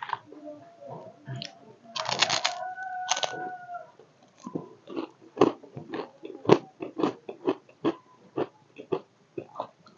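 Crunchy snack chips being bitten and chewed close to the microphone, with sharp crunches about twice a second through the second half. A couple of seconds in there is a louder burst of rustling noise with a held tone under it.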